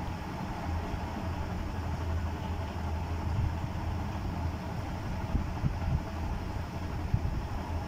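Steady low hum under a haze of background noise, with a few short knocks about five to seven seconds in.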